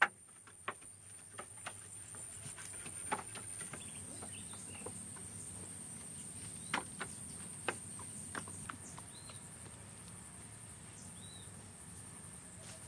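Forest ambience: a steady high-pitched insect drone, with scattered light clicks and taps and two brief bird chirps in the second half.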